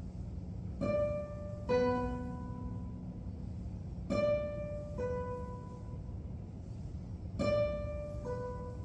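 Classical guitar ensemble playing sparse, ringing plucked notes in pairs, a higher note then a lower one, three times about three seconds apart. A steady low background hum runs underneath.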